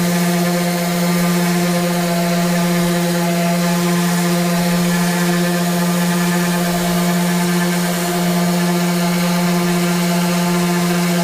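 Electric sander running steadily while sanding a Corian solid-surface cutting board, giving a constant motor hum with a hiss of abrasion over it.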